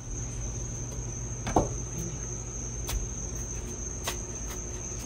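Knife cutting through watermelon and knocking on a plastic cutting board, a few separate knocks with the loudest about a second and a half in. Under it runs a steady high chirring of crickets and a low hum.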